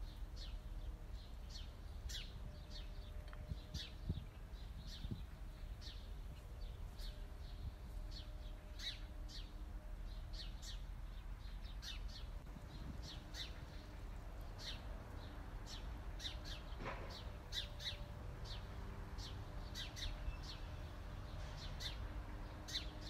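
Small birds chirping: many short, high chirps, several a second, over a low steady rumble, with one longer falling call about two-thirds of the way through.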